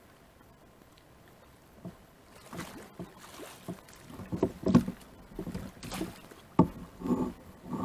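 Hooked flathead catfish thrashing at the surface beside a fishing kayak: irregular splashing and sharp knocks, starting about two seconds in and growing louder in the second half.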